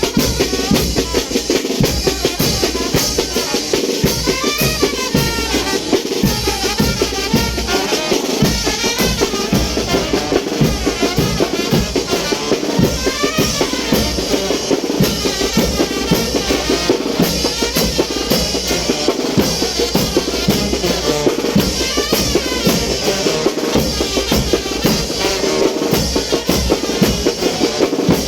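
Mexican wind band (banda de viento) playing chinelo dance music: a steady, driving beat of bass drum, snare and cymbals under a wind-instrument melody.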